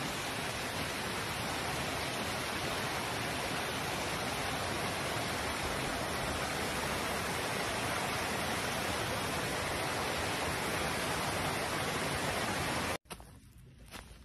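Steady rushing of stream water, an even hiss with no rhythm, that cuts off suddenly near the end. A few soft footsteps on dry leaves follow.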